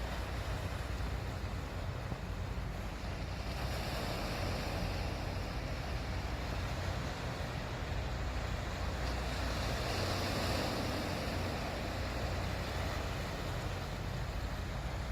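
Sea waves washing against a harbour breakwater, the surf swelling louder about four seconds in and again about ten seconds in, with a steady low rumble of wind on the microphone.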